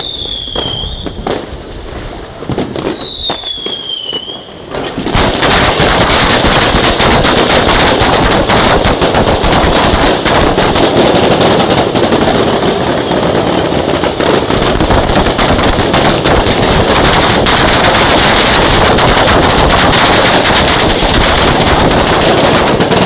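Two whistling fireworks, each a falling whistle, with a few scattered bangs. Then, about five seconds in, a long string of firecrackers goes off as a continuous rapid rattle of bangs that lasts to the end.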